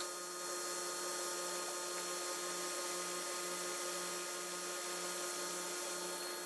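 A woodworking power tool running steadily, with a constant hiss and a low hum that pulses about twice a second.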